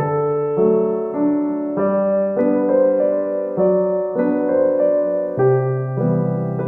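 Background music: slow, gentle piano or electric-piano chords with new notes struck every half second or so.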